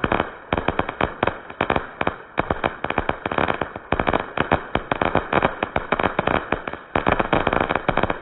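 Fireworks finale: a rapid barrage of exploding shells and crackling, many bangs a second with only brief dips between volleys.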